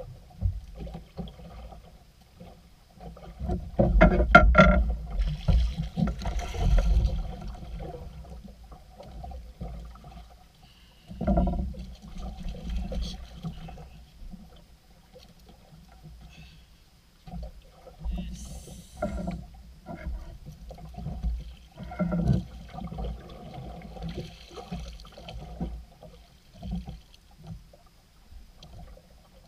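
Water splashing and knocks against a small outrigger boat as a hooked tanigue (Spanish mackerel) is gaffed and hauled aboard. The loudest splashing and clatter comes about four seconds in, followed by scattered single thumps.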